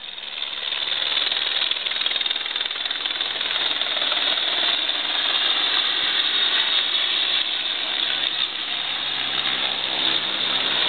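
Helicopter flying in overhead, its rotor beating fast. The sound grows louder over the first few seconds, then holds steady.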